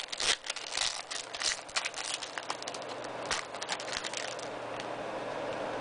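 Foil trading-card pack wrapper crinkling and crackling in the hands as it is pulled open and the cards are drawn out, the irregular crackles dying down about four and a half seconds in.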